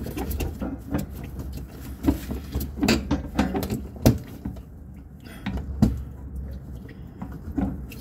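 Plastic fuel pump module of a Chrysler PT Cruiser being twisted and pushed into the fuel tank opening by gloved hands: a string of irregular clicks, knocks and scrapes of plastic against the tank.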